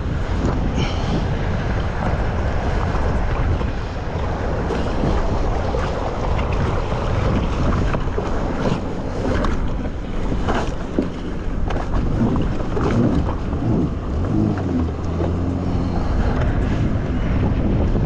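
Jet ski out on the water: a steady rush of wind buffeting the microphone over water noise and the craft's engine, with a low engine hum showing through plainly about three quarters of the way in.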